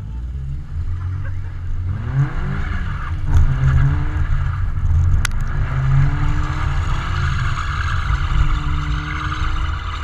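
Car engine revving up and down as the car slides on ice, its pitch rising in several sweeps, with a steady hiss alongside. One sharp click about five seconds in.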